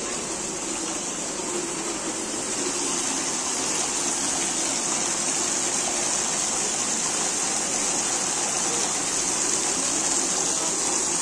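Ornamental fountain jets splashing into a pool, a steady rush of falling water that grows a little louder over the first few seconds.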